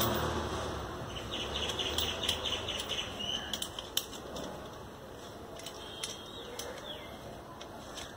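Scattered light clicks and rustling from handling a homemade spanner's threaded rods and nuts as it is fitted onto a PVC end cap.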